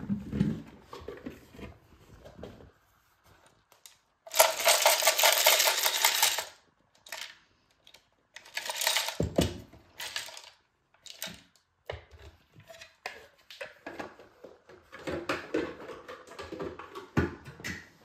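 Loose Lego bricks rattling and clattering inside the clear plastic dust container of a bagless Bosch BGS21X320 vacuum cleaner as it is handled, in several bursts, the loudest about four seconds in, with clicks and knocks of the plastic container between.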